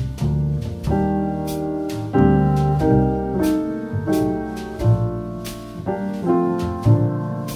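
Background music led by piano, its chords changing about once a second over low bass notes, with light percussion.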